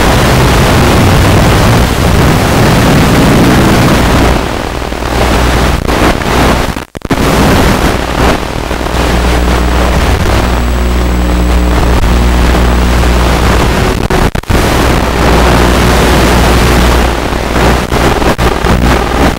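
Loud, steady rushing noise from the UMX Radian's onboard FPV camera audio: wind and the electric motor and propeller, carried over a noisy analog video link. It cuts out abruptly twice, about 7 and 14 seconds in, and turns choppy near the end.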